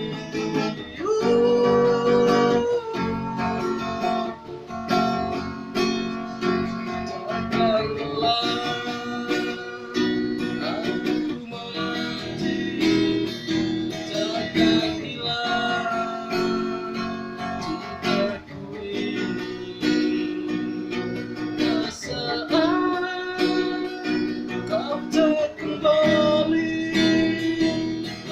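Song music led by acoustic guitar, plucked and strummed, in a passage where no sung words are picked out.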